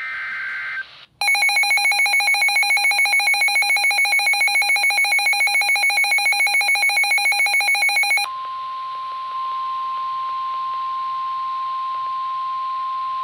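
Emergency Alert System tones. First the end of a short warbling burst of digital header data. About a second in, a loud, buzzy alert tone starts, pulsing about seven times a second for some seven seconds. Then a single steady high tone, the NOAA Weather Radio warning alarm, holds until near the end.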